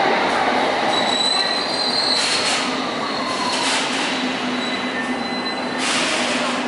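Bombardier S8 Stock Metropolitan line train braking to a stop at the platform: a high squeal from the wheels and brakes over a whine that falls in pitch as the train slows, with three short hisses and a steady low hum once it is nearly stopped.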